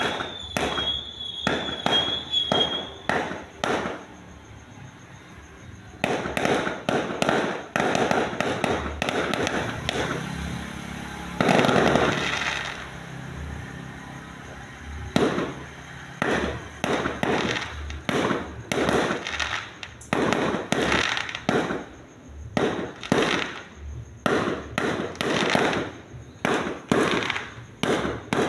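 Fireworks going off: rapid series of sharp bangs, with a dense stretch of crackling from about six to thirteen seconds in, and a high warbling whistle over the first few seconds.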